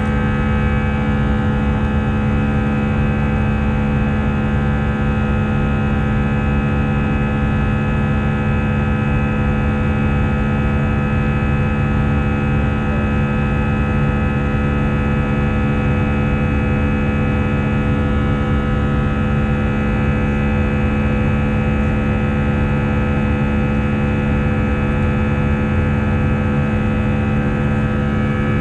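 Steady cabin noise of an Airbus A319-111 in climb after takeoff: the drone of its CFM56 turbofans and rushing air. Many steady hum tones sit in it, one strong low hum standing out, with no change throughout.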